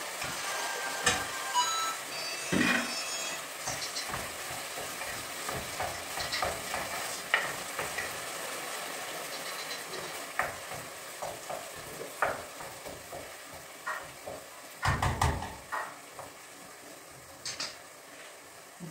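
A spoon stirring in a metal cooking pot on a gas stove, clinking and knocking against the pot now and then, with a quick run of knocks about fifteen seconds in. A steady sizzling hiss underneath slowly fades.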